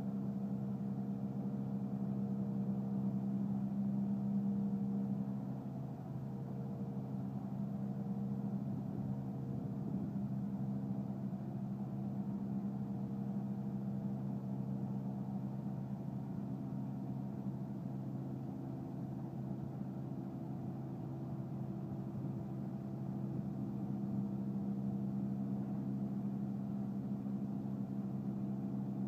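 Eschlböck Biber 84 truck-mounted wood chipper running at a steady speed with no wood being fed: an even mechanical hum that eases slightly about five seconds in.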